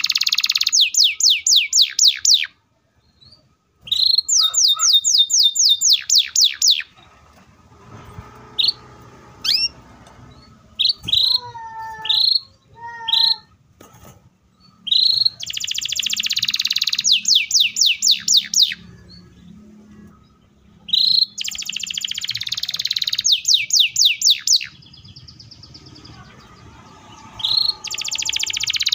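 Canary singing in repeated loud phrases, each a buzzy trill running straight into a rapid series of falling notes, the fast 'roll' prized in song canaries. Around the middle, between phrases, it gives scattered single chirps.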